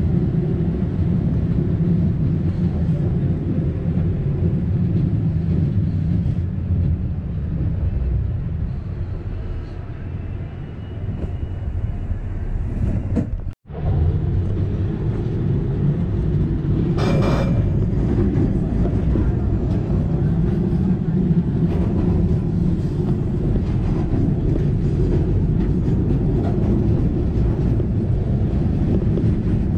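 Vintage Melbourne W2-class streetcar running on street track: a steady low rumble of motors and steel wheels on rail. About halfway through the sound drops out for an instant, and a few seconds later there is a short hiss.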